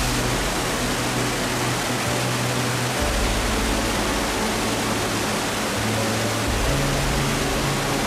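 Steady rush of a waterfall and water pouring over a weir, a constant even hiss. Underneath it, soft background music of low sustained notes that change every few seconds.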